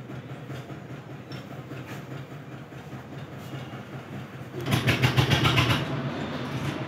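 A motor engine running steadily in the background. About two-thirds of the way in it grows louder, with a fast ticking rattle that eases after about a second.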